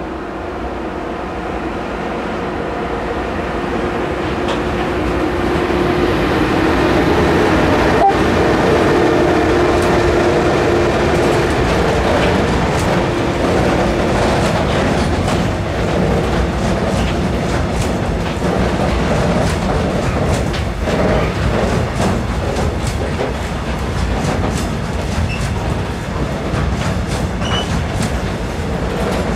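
A train approaching and passing, growing louder over the first several seconds with a steady hum, then wheels clattering over rail joints as the cars roll by.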